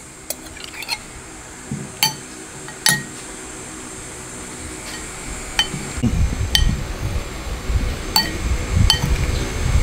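Scattered light clinks, about eight of them at irregular moments, each ringing briefly at a clear, high pitch, with the pitch differing from one clink to the next. From about six seconds in, a low irregular rumble runs underneath.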